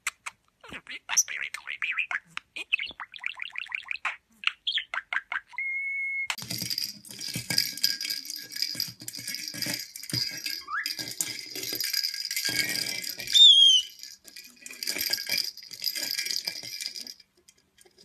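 A budgerigar chattering in quick clicks, with a brief whistle near six seconds. Then a white-bellied caique shoves a plastic cage-ball toy over a wooden floor, setting it rattling continuously, and gives one loud short squawk that falls in pitch about 13 seconds in.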